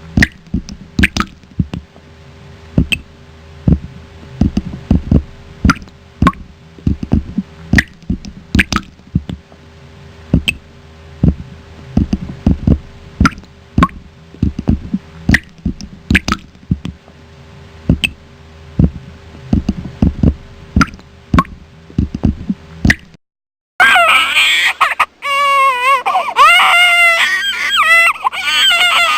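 An irregular run of short, low plopping knocks, two or three a second, over a faint steady hum, stops after about 23 seconds. After a brief silence an infant starts crying loudly, in wavering wails.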